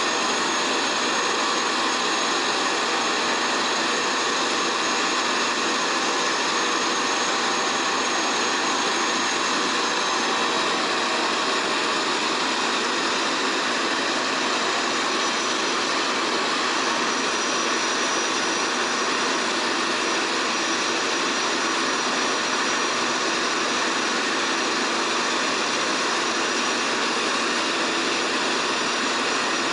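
Eurocopter AS350 B3 helicopter's Turbomeca Arriel turbine engine and rotor running steadily: a high turbine whine over an even rushing noise.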